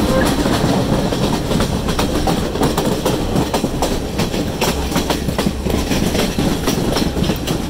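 Passenger train running, its wheels clacking over the rail joints in an irregular run of sharp clicks over a steady rumble, heard from on board.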